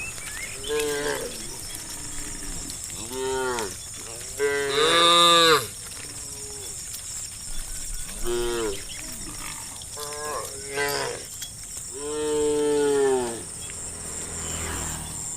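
Cows mooing, about six separate moos of differing length, the loudest about five seconds in and a long one about twelve seconds in, over a steady high trill of insects.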